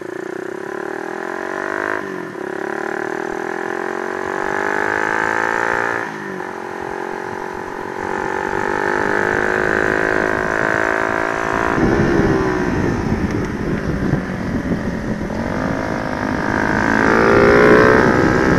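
Single-cylinder engine of a Honda Sonic 125 with a 150cc engine swap, accelerating hard on track. The engine note climbs and drops back with upshifts about two and six seconds in. From about twelve seconds in, wind rumbles on the microphone under the engine note, which climbs again near the end.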